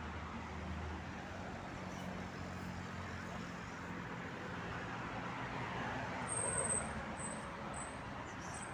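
Steady road traffic noise from passing cars, with a low engine hum under it. A few short, very high squeaks sound in the second half.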